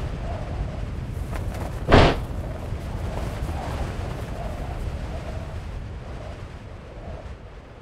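A single sudden loud boom about two seconds in, over a steady low rumble that slowly fades.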